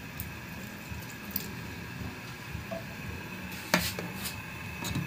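A pot of malunggay soup simmering with a steady low bubbling, while a metal ladle clinks against the pot a few times, most sharply a little before the end.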